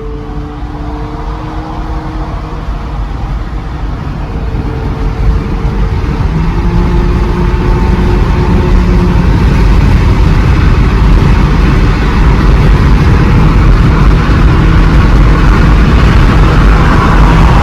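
A car under way, its engine and road noise building over the first ten seconds or so to a steady loud rush, with engine notes that change pitch in steps early on.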